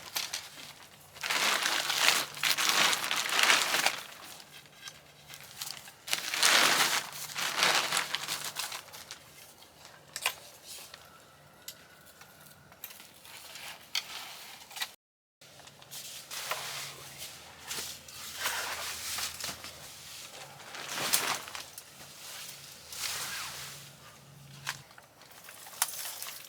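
Rustling and crinkling of gear being handled and set down, in several loud bursts of a second or two each, with a short dead gap about halfway through.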